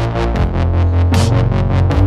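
Background music with a heavy bass line and a quick, steady beat.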